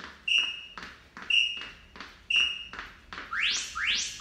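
Interval timer app: three short electronic beeps about a second apart, then a run of rising chirps about two a second, the signal of a change between work and rest intervals in a Tabata workout.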